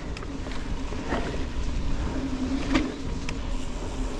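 Canyon Spectral mountain bike rolling along a dirt forest singletrack: a steady low rumble of tyres and wind with a faint hum, broken by a few sharp clicks and knocks from the bike over the trail.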